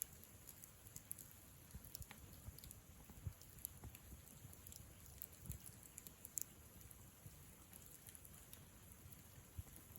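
Wood campfire crackling faintly, with scattered irregular pops and snaps over a low hiss.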